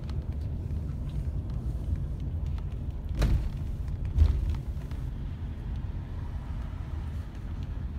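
Road vehicle riding along, heard from inside the cabin: a steady low rumble of engine and road noise, with two sharp thumps about a second apart near the middle.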